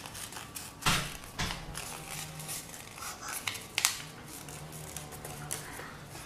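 Sheet of craft paper rustling and crinkling as it is handled and folded by hand, with a few sharp crackles, the loudest about a second in and just before four seconds.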